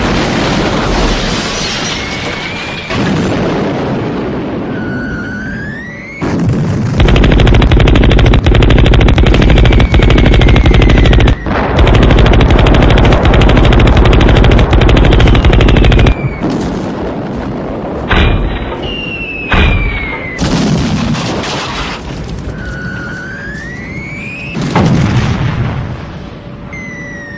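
Battlefield sound effects. A long stretch of rapid gunfire fills the middle, about nine seconds with one brief break. Before and after it come booms and whistling glides, some rising and some falling, like shells in flight.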